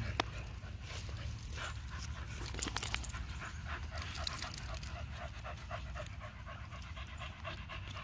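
Dogs panting quickly and steadily while they wrestle on leashes, about three to four breaths a second, clearest in the second half, with scattered light clicks and rustles of their play.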